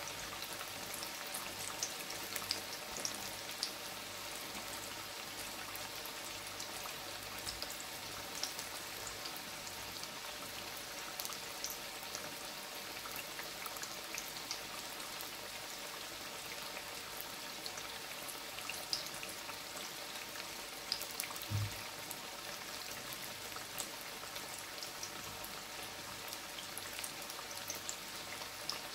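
Breadfruit slices deep-frying in oil in a stainless steel pot: a steady sizzle with many small crackles and pops. There is one low thump about three quarters of the way through.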